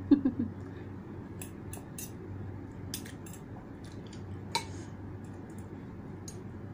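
Fork and spoon clinking and scraping against a bowl of noodles, scattered light clicks with the sharpest about four and a half seconds in, after a short hummed "mm" at the start. A steady low hum sits underneath.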